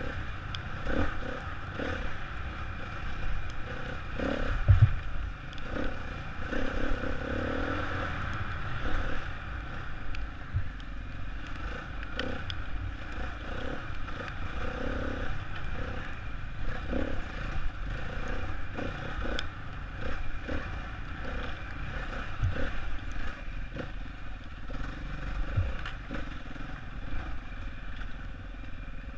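Enduro dirt bike engine running, its revs rising and falling as it rides rough forest singletrack, with wind rumble on a helmet-mounted microphone. Knocks and clatter from the bike hitting bumps, the heaviest about five seconds in.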